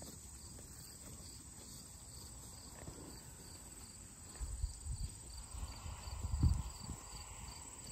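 Insects chirping steadily: a high continuous trill with a regular pulsing chirp beneath it. Low thumps and rumbles come in the second half, the loudest about two thirds of the way through.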